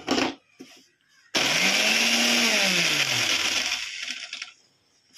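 Kitchen mixer grinder's motor switched on briefly, driving the repaired jar's blade as it grinds, now turning freely and grinding properly. A few clicks near the start, then about two seconds of whirring whose pitch rises and then falls away as the motor slows to a stop.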